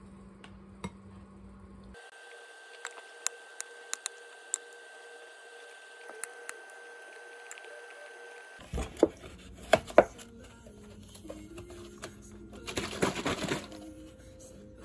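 Household handling sounds in a few short edited takes: light clicks and taps, then several sharper knocks about nine to ten seconds in, and a short rushing noise like liquid a little before the end.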